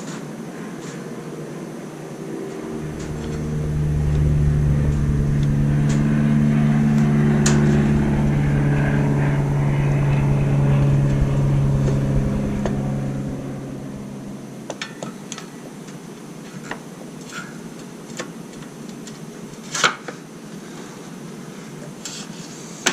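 A steady, low, engine-like hum that swells up, holds for about ten seconds and fades away, followed by a few light metallic clicks and knocks.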